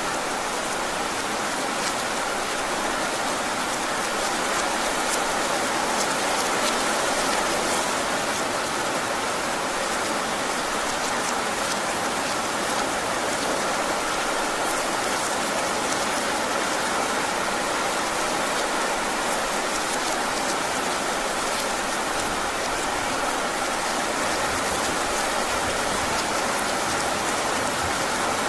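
Heavy rain falling steadily, a dense even hiss with fine drop patter, as of rain on a roof.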